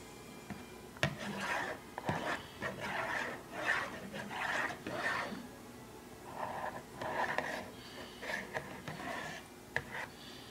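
A series of short rasping scrapes and rubs, irregular, several a second at times, with a few sharp clicks among them.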